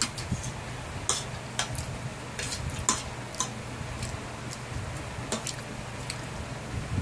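Metal fork clicking and scraping against a plate while eating spaghetti: several short sharp ticks a second or so apart, over a steady low hum.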